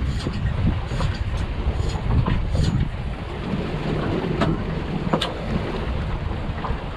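Wind buffeting the microphone over the low, steady running of the catamaran's twin Mercury Verado outboards, with a few light clicks and knocks scattered through.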